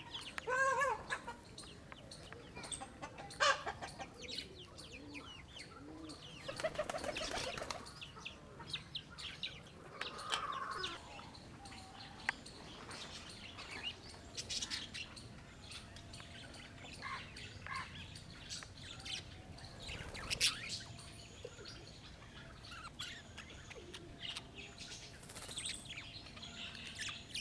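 Birds calling: scattered short chirps and clucking calls, some in quick runs, with louder clusters about half a second, three and a half, seven, ten and twenty seconds in.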